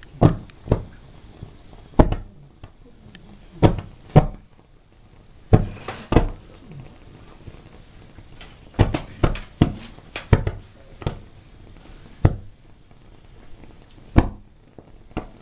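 Irregular sharp thumps and pops, more than a dozen, come one or two at a time. They are from acetylene gas bubbling out of calcium carbide in a bowl of water and igniting in flaring bursts above the surface.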